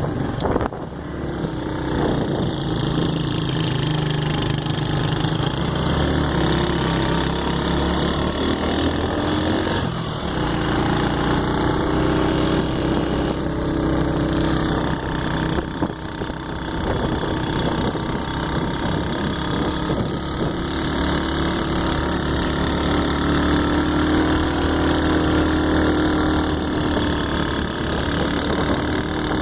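A vehicle engine running steadily, its low drone shifting in pitch a few times as the engine speed changes.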